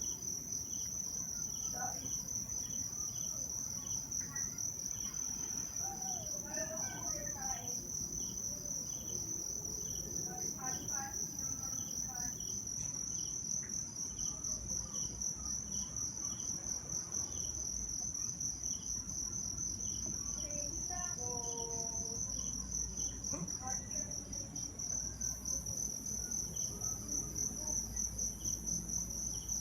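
Insects trilling steadily at a high pitch, with a second insect chirping in short, regular pips. A few faint calls that slide in pitch come through in the middle of the stretch.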